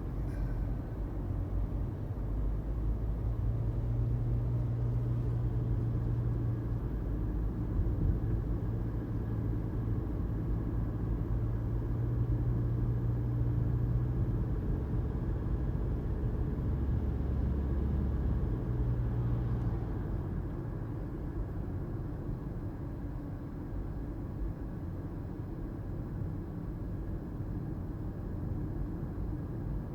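2018 Toyota Prius hybrid driving along, a steady low rumble of road and drivetrain noise with a hum that drops away about two-thirds of the way through, leaving quieter road noise.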